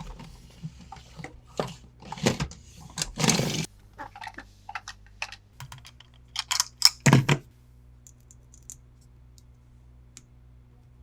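Hands handling plastic toys and their packaging: irregular clicks, taps and short rustles, the loudest pair about seven seconds in, then only a few faint ticks.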